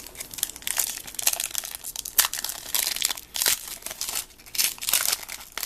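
Wrapper of a trading card pack crinkling and tearing as it is opened by hand: a fast, irregular run of crackles.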